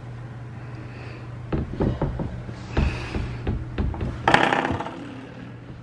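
Golden retriever puppy pawing and mouthing at the camera up close: an irregular run of knocks, clicks and scrapes against it, with a short rush of noise about four seconds in.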